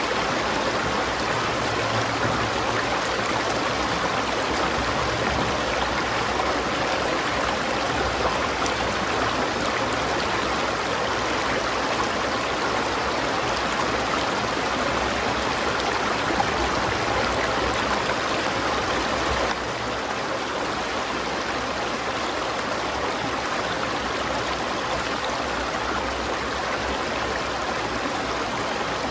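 River water flowing in a steady, continuous rush; the level drops slightly about two-thirds of the way through.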